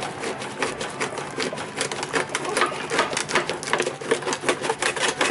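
Thin plastic water jug crackling with rapid, irregular clicks as it is gripped and twisted around a lawn tractor's oil filter.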